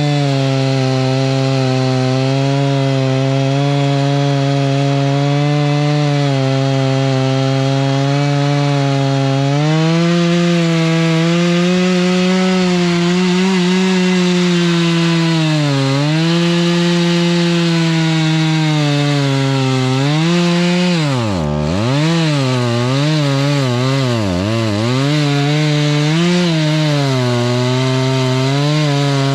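Rural King RK55 tractor's diesel engine running hard to drive a Woodland Mills WG24 PTO stump grinder. The note is steady at first; over the last third its pitch dips sharply again and again as the engine comes under load, the deepest dip about two-thirds of the way through.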